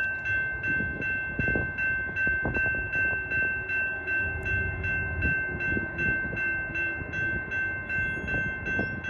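Grade-crossing bell ringing steadily at about three strikes a second, over the low rumble of a passing passenger train.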